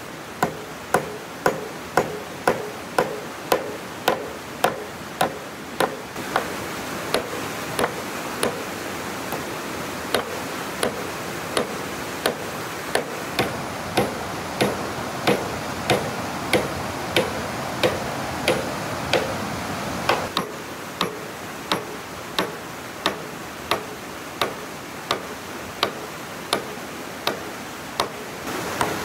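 Steady, even strokes of a hand tool on wood, about one and a half strikes a second, over a steady hiss.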